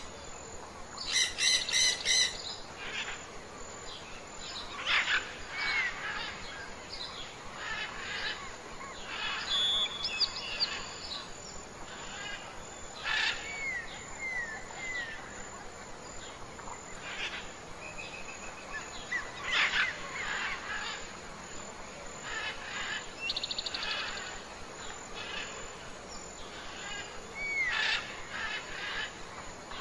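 Many wild birds calling: scattered chirps, short whistled notes that rise and fall in pitch, and a harsh repeated call near the start, over a steady background hiss.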